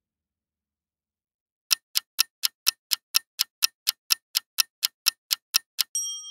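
Clock-tick countdown timer sound effect: a silent start, then even ticks at about four a second from a couple of seconds in, ending near the end with a bright, ringing chime of several tones that signals time is up.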